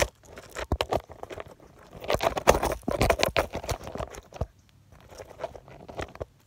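Handling noise: irregular rustling, clicks and knocks, densest about two to three and a half seconds in.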